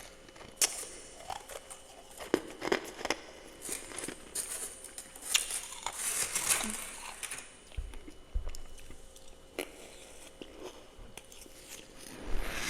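A person chewing freezer frost in the mouth, making irregular crisp crunches and crackles, with a denser run of crunching midway.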